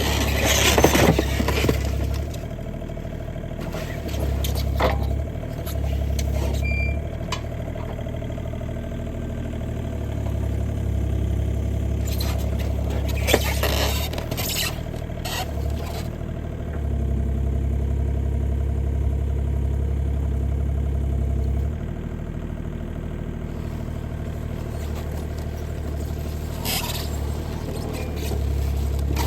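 Bobcat E35 mini excavator's diesel engine running, its deep hum swelling and easing every few seconds as the machine works, with scattered scrapes and knocks.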